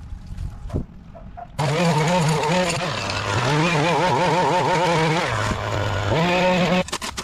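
An engine comes in abruptly about one and a half seconds in. It runs with a wavering pitch, drops to a lower, steadier note for a while, climbs again, then cuts off suddenly near the end.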